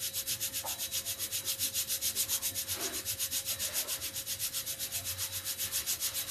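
Continuous whooshing hiss that pulses evenly about six times a second, with a faint steady hum underneath.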